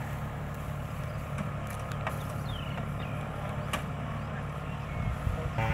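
Kubota DC-70 combine harvester's diesel engine running steadily as it harvests rice, heard as a low, even hum, with a few faint clicks partway through.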